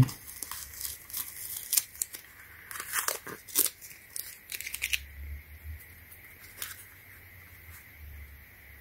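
Masking tape being peeled off a rubber slide sandal and balled up: a run of irregular crackling rips over the first five seconds or so, then only faint handling sounds.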